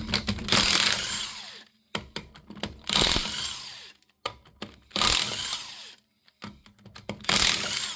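Power impact wrench zipping lug nuts off a car wheel in four short bursts, with small metal clicks between the bursts as the nuts come loose.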